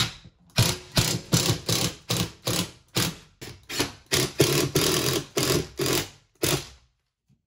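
Ryobi cordless impact driver with a number 3 Phillips bit driving lag bolts through a steel microwave mounting bracket into the wall, its hammering coming in rapid pulses about two and a half times a second and stopping abruptly near the end.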